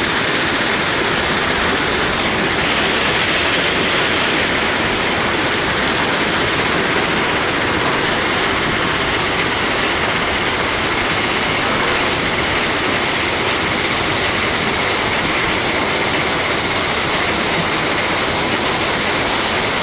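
A 200 TPH three-stage stone crushing plant running, with its crushers and conveyor belts making a loud, steady, unbroken mechanical clatter.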